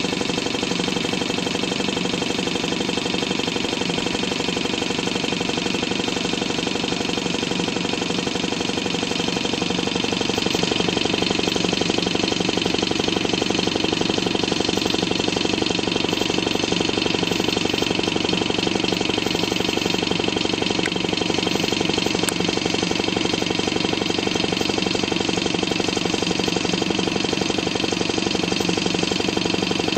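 Stirling engine generator running steadily under load, with its fan spinning: a fast, even mechanical running sound that grows slightly louder about ten seconds in.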